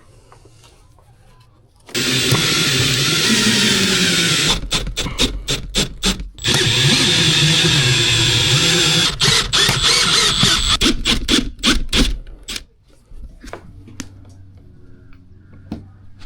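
A loud power tool starts about two seconds in and runs steadily, then is triggered on and off in quick bursts, runs again, and pulses in short bursts before stopping about twelve seconds in.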